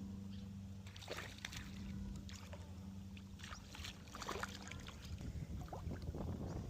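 Light, irregular splashing and sloshing of river water over a steady low hum.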